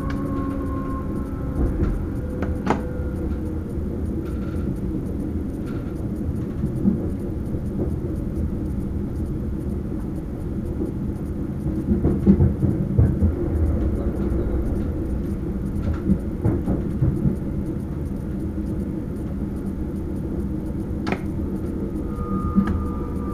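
Sprinter electric train running along the line, heard from the driver's cab: a steady low rumble of wheels on rails, with a few short knocks and clicks, the loudest about halfway through. A faint whine sets in near the end.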